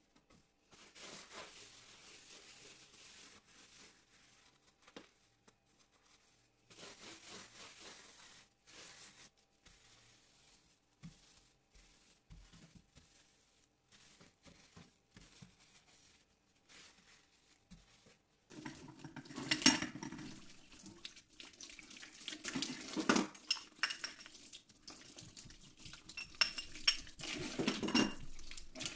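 Soft scrubbing of a sponge over a stainless-steel stovetop and tiled wall. About two-thirds through, a tap runs into a steel sink and a metal stove burner grate clanks against the sink as it is washed, with several sharp knocks.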